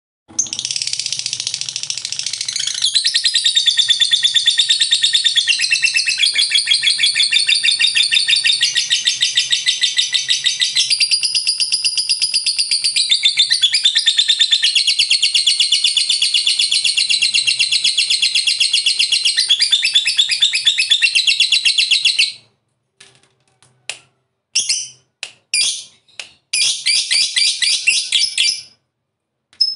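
Lovebird giving a long ngekek: a loud, very rapid, unbroken chattering trill lasting about 22 seconds and shifting in pitch a few times, then breaking into short bursts of chatter near the end.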